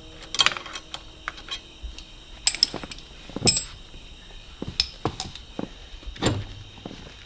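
A series of irregular knocks and metallic clinks, the loudest about half a second and three and a half seconds in: tools and metal steering-wheel hub parts being handled and set down in the car.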